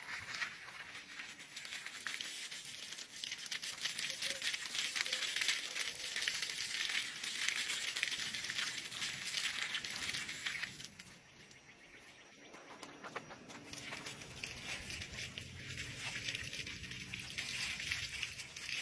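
Steady heavy rain, a dense crackling patter with a short lull about eleven seconds in.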